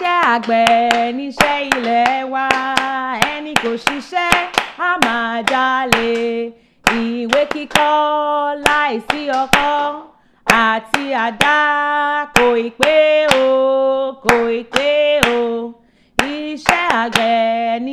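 A woman singing a Yoruba song in phrases with short breaks, accompanied by steady hand claps about two a second.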